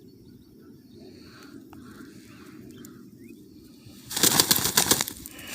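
A loud burst of rustling, flapping noise, made of many quick strokes, starts about four seconds in and lasts a little over a second, over a faint steady outdoor background.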